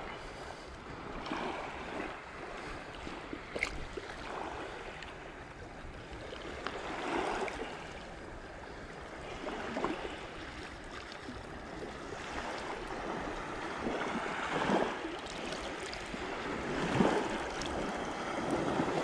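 Shallow water lapping and sloshing against a rocky shoreline, swelling and fading every few seconds.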